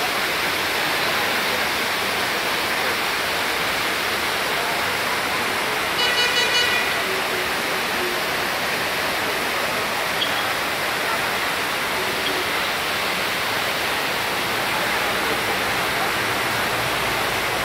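Waterfall rushing in a steady roar of falling water; about six seconds in, a vehicle horn honks briefly over it.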